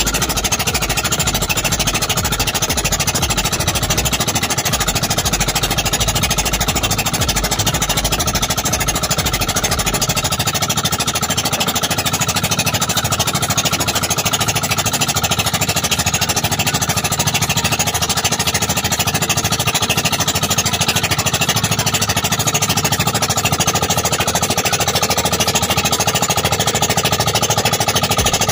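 Engine of a motorized outrigger fishing boat (bangka) running steadily and loudly while the boat is underway. A low rumble beneath it drops away about ten seconds in.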